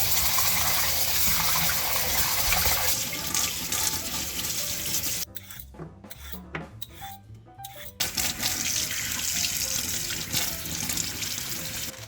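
Tap water running into a kitchen sink, which stops for about three seconds in the middle and then runs again.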